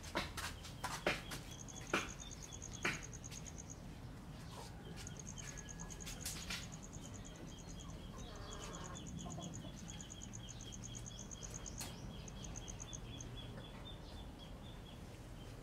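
Outdoor ambience of high, rapid chirping trills that come in spells of one to three seconds, with a steadier string of lower chirps under them. A few sharp clicks fall in the first three seconds.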